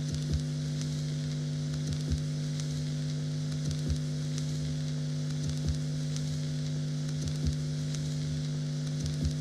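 Ambient drone soundtrack: a steady low hum of two held tones under a crackling, sizzling hiss, with a soft low pulse about every two seconds.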